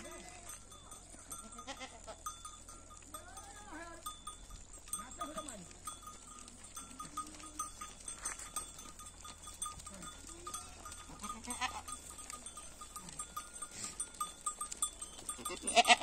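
A herd of goats bleating now and then as they walk, with many small ticks of hooves on the paved road; one loud bleat close by near the end.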